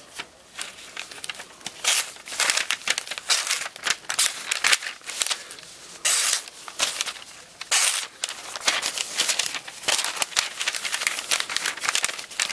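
Kershaw Intellect folding knife's 8Cr13MoV stainless drop-point blade cutting through catalog paper, in a series of irregular rasping, tearing strokes mixed with the crinkle of the pages being handled. The cut tears and snags rather than slicing clean, which the user puts down to his own technique.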